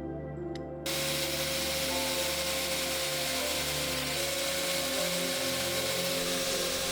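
A power tool starts suddenly about a second in and runs steadily, shaping wood and G10 handle scales, under background music.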